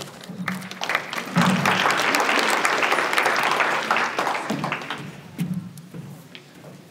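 Audience applauding. The clapping swells about a second in and dies away by about five seconds.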